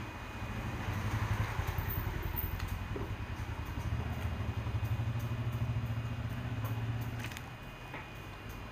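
An engine running with a low, steady drone that fades out about seven seconds in, with a few light clicks over it.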